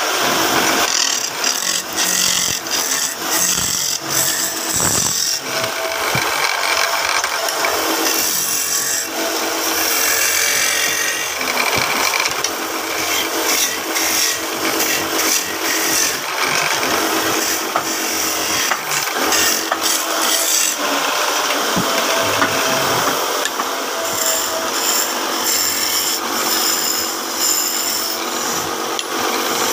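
Wood lathe spinning a wooden cot leg while a hand chisel shaves it: a continuous scraping hiss of wood being cut, rising and falling with frequent rasping scratches as the tool is pressed in and eased off.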